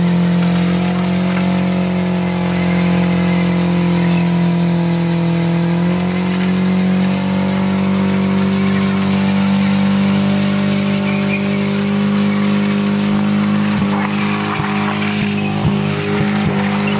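BMW E36 3 Series sedan's engine held at high, steady revs during a burnout, its rear wheel spinning on wet pavement. The revs step up slightly about six seconds in, and near the end the car pulls away.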